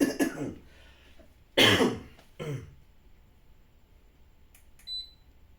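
A man coughs and clears his throat in three short bursts, the loudest a little over a second and a half in. About five seconds in there is one short high electronic beep.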